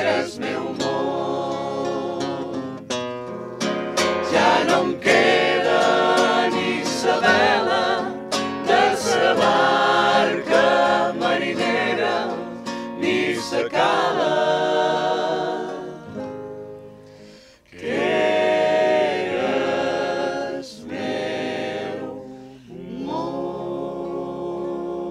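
A mixed group of men and women singing a folk song together in Menorcan Catalan, with acoustic guitar accompaniment. The singing breaks off briefly about two-thirds of the way through, then resumes.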